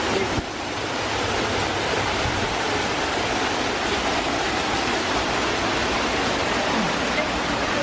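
Waterfall water pouring and splashing in a loud, steady rush.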